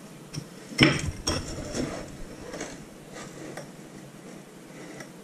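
A potted plant set down on a hard surface with a knock about a second in, followed by a few light clinks and taps as the pot is shifted into place.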